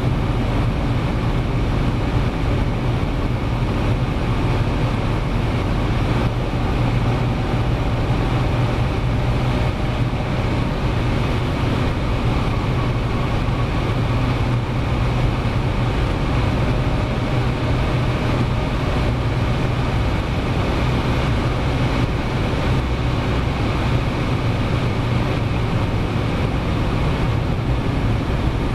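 Cabin noise of a G-Power Hurricane RS BMW M5 Touring at over 300 km/h: its twin-supercharged V10 runs under a dense, steady roar of wind and road noise.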